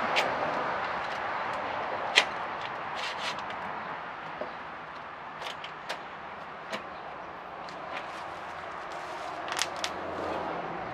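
Scattered sharp knocks and clacks, the loudest about two seconds in and a quick pair near the end, over a steady hiss that eases off after a few seconds.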